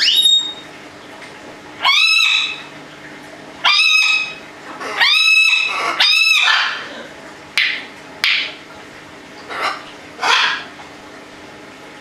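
Pet parrots, an African grey and a red macaw, calling: about ten loud, short squawks, some with a clear ringing pitch, in an irregular run with gaps between them.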